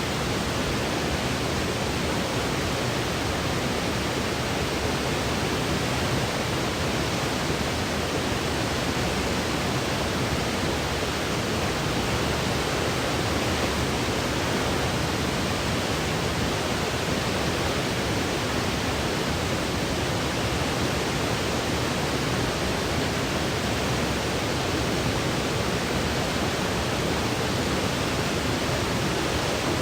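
Steady white noise from a sleep-aid track: an even, unbroken hiss with no changes or events.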